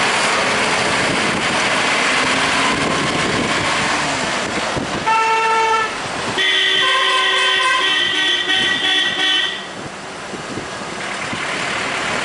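Street traffic noise, then a short vehicle horn toot about five seconds in, followed by a longer honk of about three seconds.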